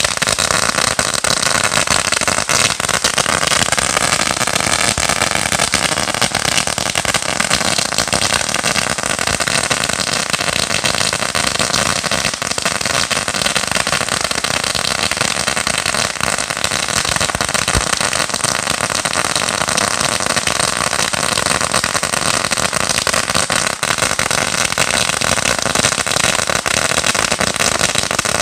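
A 16,000-count firecracker strip going off in one unbroken, dense run of rapid bangs, so fast that they blur into a steady crackling roar with no pause.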